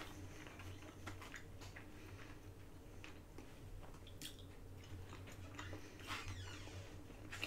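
Faint mouth sounds of a person chewing food, with scattered small wet clicks and smacks.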